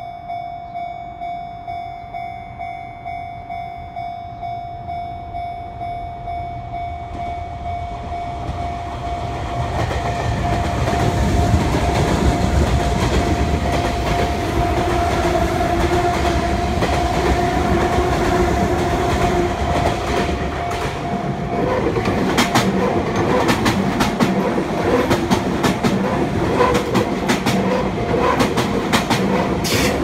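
A railway level-crossing warning bell dings steadily while a Sotetsu 9000 series electric train rumbles past on the far track. Then a Sotetsu 7000 series train passes close on the near track, its wheels clacking rapidly over the rail joints for the last several seconds.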